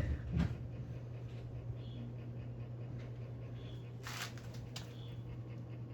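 1950s GE single-speed box fan running quietly at low speed: a steady low motor hum with faint, evenly repeating ticks. There is a short rustle about four seconds in.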